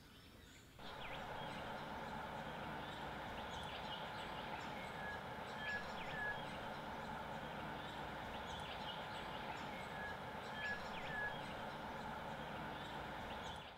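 Steady hissing background with short bird chirps over it, starting about a second in; the same few chirps come back about every five seconds, as in a looped track.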